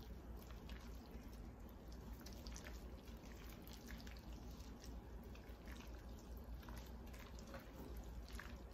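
Faint, wet squishing and small ticks of gloved hands gently mixing crab meat and sauce in a glass bowl.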